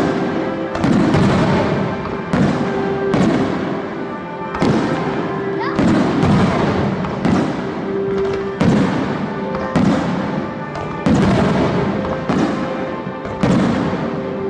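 Fireworks shells bursting in quick succession, about a dozen loud bangs roughly a second apart, over music from a fireworks show set to music.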